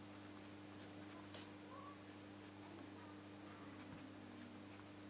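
Faint scratching of a pencil drawing on paper, in short irregular strokes, over a low steady hum.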